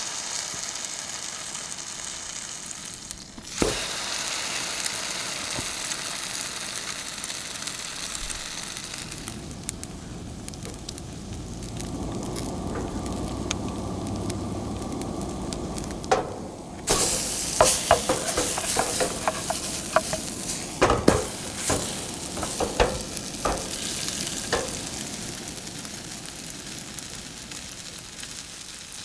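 Food sizzling as it fries in a pan, heard in several short cuts, with utensils clinking and knocking against the pan in the second half.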